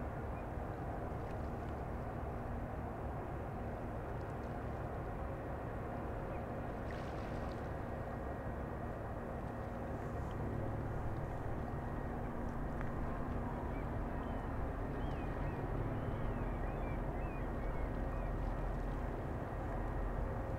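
Steady low drone of ship engines running on the harbour water, with a faint steady hum over it and a few faint high chirps in the second half.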